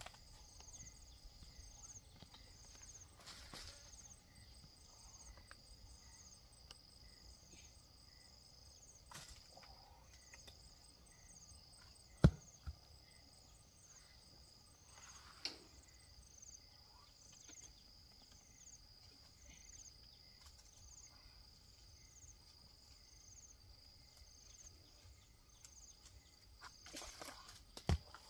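Faint, steady insect chirping in a regular pulse, with brief rustles of leaves and branches from climbing in the tree. Two sharp heavy thumps stand out, the louder one about twelve seconds in and another near the end.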